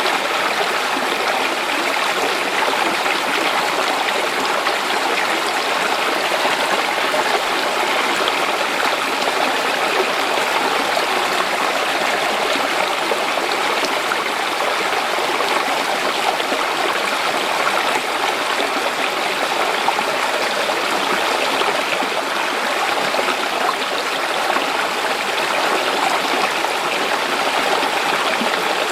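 Clear mountain stream running and splashing over rocks, a steady rush with fine trickling.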